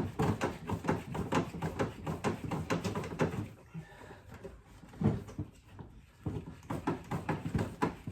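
Push mower's wheel being worked back and forth on its rust-seized bushing and axle stud, a fast run of clicks and knocks, several a second. It eases off near the middle, gives one hard knock, then starts again; the rattle comes from working loose a wheel that rust has locked in place.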